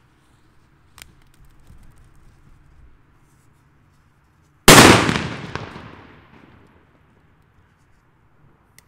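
A Hua Liang Super Böller 3 petard with a flash-powder (BKS) charge explodes with a single very loud, sharp bang about five seconds in, which echoes and dies away over about two seconds.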